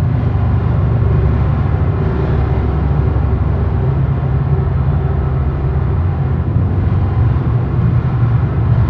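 Dark ambient noise drone: a loud, dense low rumble with steady low tones, and a hiss of noise layered above it, with no beat or speech.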